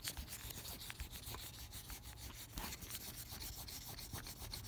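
Flair Boom dust-free eraser rubbing quickly back and forth over pencil writing on notebook paper, a steady run of short scratchy strokes.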